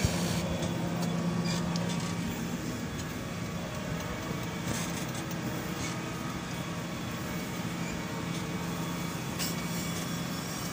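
New Holland T7.260 tractor's six-cylinder diesel engine running steadily in a low gear, heard from inside the cab, with the plough lifted at the headland.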